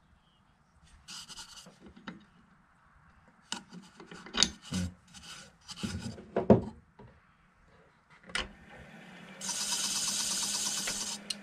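Hand rubbing against an oak-and-epoxy bowl turning on a wood lathe, in irregular scraping strokes, over the lathe's low steady hum; near the end the rubbing becomes a steady hiss for about two seconds.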